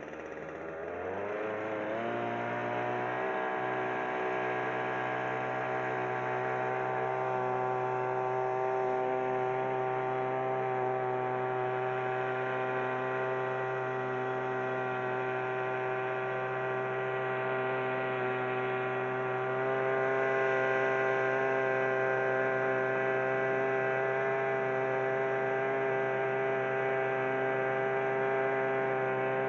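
Small boat outboard motor speeding up over the first couple of seconds, then running steadily at cruising speed with an even, unchanging pitch.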